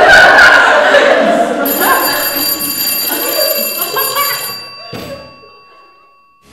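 People chuckling and laughing, then a steady ringing tone starts about two seconds in, holds for about three seconds and fades away.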